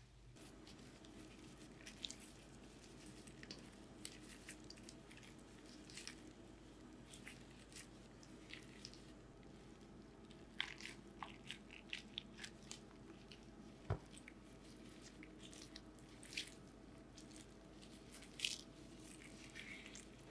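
Faint, scattered crunches of someone biting and chewing chong-gak kimchi, the crisp pickled ponytail radish.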